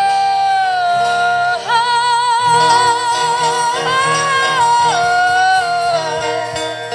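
Live song: a singer draws out one word across several long held notes with vibrato, stepping up and back down in pitch, over acoustic guitar accompaniment.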